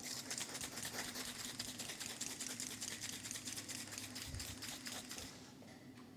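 A motorcycle drive chain being cleaned: a fast run of fine clicks with a high scratchy hiss that stops about five seconds in.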